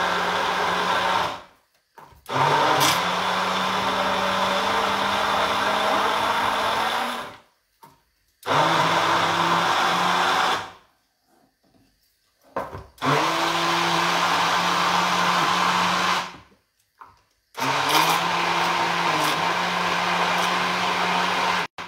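Hand-held immersion blender puréeing boiled asparagus stalks into a sauce, its motor switched on and off in runs of about two to five seconds with short silent pauses between, five runs in all.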